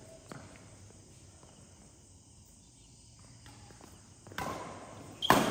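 Badminton rackets striking a shuttlecock in a rally: two sharp hits about a second apart near the end, the second the loudest, ringing in a large hall. Before them, only faint footsteps on the court.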